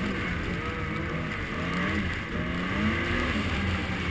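Snowmobile engine running under way, its pitch rising and falling a few times as the throttle is eased on and off, over a steady rushing noise.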